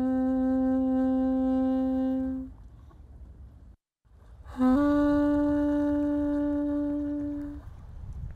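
Saxophone playing two long held notes: the first fades out a little over two seconds in, and after a short break a second, slightly higher note, led in by a quick lower note, starts about four and a half seconds in and fades near the end.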